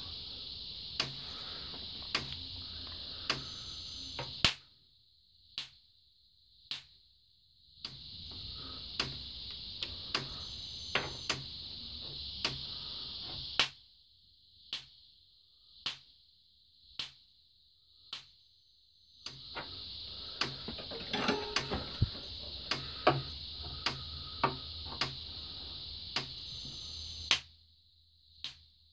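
Kencove K-6 electric fence charger pulsing on test: a sharp tick with each output pulse, about one a second at an even rate, showing the charger is firing. A steady high hiss with a low hum comes and goes in long stretches behind the ticks.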